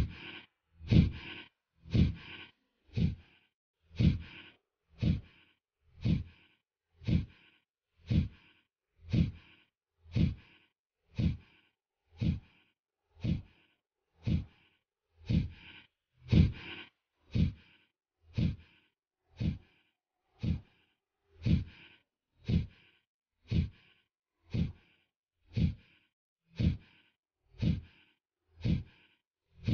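Kapalbhati pranayama breathing: short, forceful exhalations through the nose, evenly paced at about one stroke a second.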